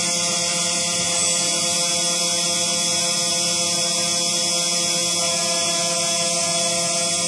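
CNC engraving machine running: a steady drone of several held tones over a strong high hiss, with no change in pitch or level.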